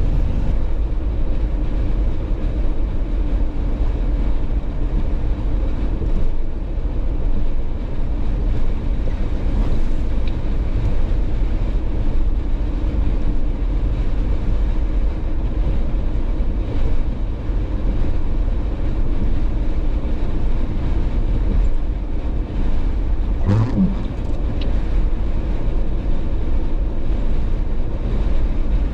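Jeep driving at highway speed: steady low road and engine rumble with no let-up, and one short knock late on.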